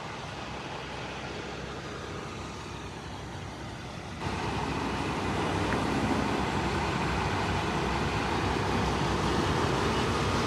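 Steady street traffic and engine noise, which suddenly becomes louder and fuller about four seconds in.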